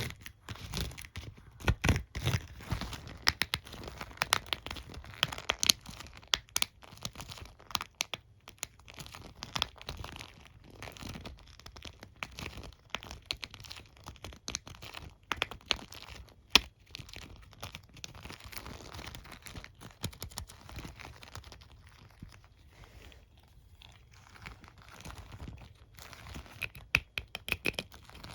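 A comb and hairbrush being rubbed, scratched and tapped close to the microphone: dense, irregular crackling and scratching with many quick sharp clicks, thinning out for a few seconds past the middle.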